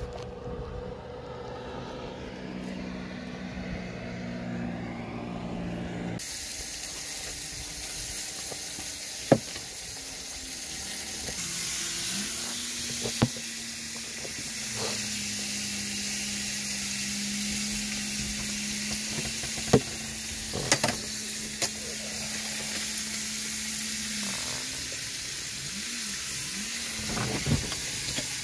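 Beef steak sizzling as it fries in a pan on a portable gas camping stove; the steady hiss starts abruptly about six seconds in. A few sharp utensil clicks sound over it.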